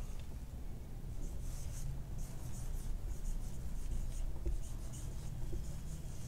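Felt-tip marker writing on a whiteboard: a quick run of short, high-pitched squeaky strokes as letters are drawn, starting about a second in.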